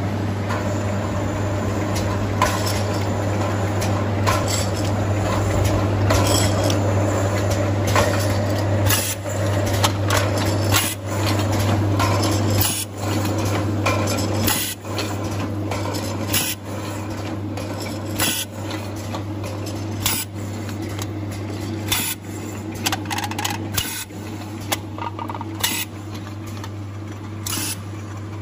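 Automatic aluminium can-seaming machine and conveyor running: a steady motor hum, with the cans clinking against each other and the guide rails in sharp clicks every second or two.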